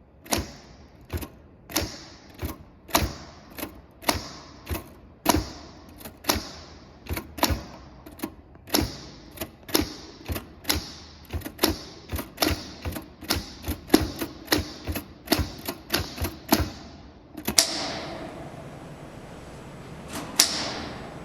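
Typewriter keystrokes, sharp clacks about two a second for most of the stretch. Near the end they give way to a longer rushing sound and one more loud strike.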